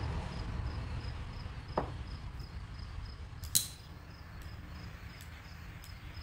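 Sharp click of a small handheld butane torch as it is lit about three and a half seconds in, with a lighter click a couple of seconds before it. A steady high ticking, about three times a second, runs underneath over a low rumble.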